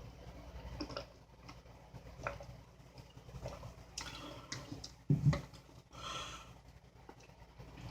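A woman drinking beer: small sips, swallows and clicks, with a short low throaty sound about five seconds in.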